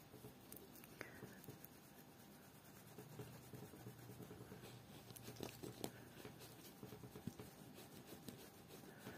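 Near silence with faint, soft scratchy brushing: a powder makeup brush being swept over the skin of the face, with a few small clicks.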